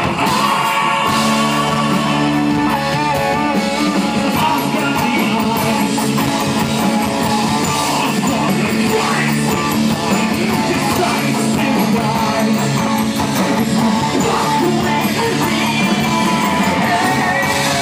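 Live rock band playing loud and steady, with drums and guitars, as heard from the audience.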